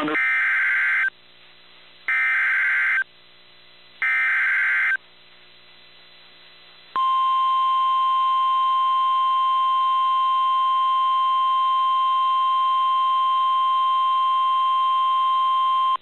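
NOAA Weather Radio alert signal received over FM: three short bursts of the warbling EAS/SAME digital header about two seconds apart, then a couple of seconds later the steady 1050 Hz warning alarm tone begins and holds. Together they announce a new warning, here a flash flood emergency.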